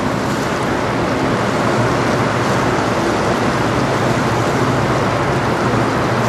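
Steady rushing noise of wind and choppy river water with a low, steady drone underneath.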